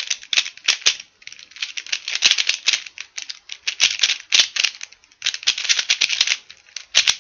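Rubik's Cube being turned fast in a speedsolve: rapid runs of plastic clicking and clacking as the layers are turned, broken by brief pauses about a second in and again around five seconds in.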